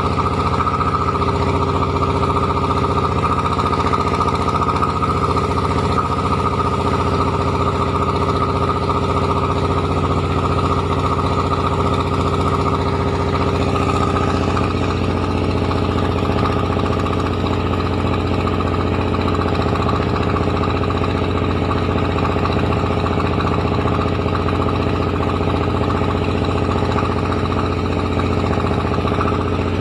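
Rice milling machine running steadily under power, a continuous low mechanical drone with a high whine on top.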